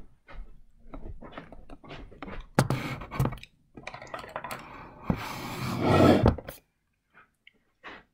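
Handling noise from the camera being picked up, moved and set down: irregular clicks and knocks with two stretches of rubbing and rustling against the microphone, dying away about six and a half seconds in.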